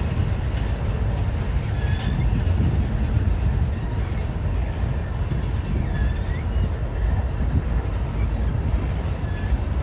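Double-stack intermodal freight train of container well cars rolling past: a steady low rumble of wheels on rail, with a few short rising high squeaks.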